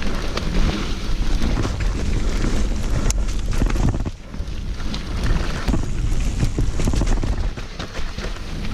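Mountain bike moving over a rough dirt trail, heard through a mounted action camera: wind buffeting the microphone over a constant rattle and clatter of clicks from tyres, chain and frame, briefly easing about four seconds in.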